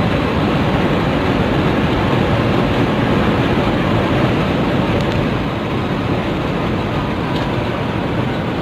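Intercity bus running at speed, a steady rush of engine and road noise that eases slightly a little past halfway.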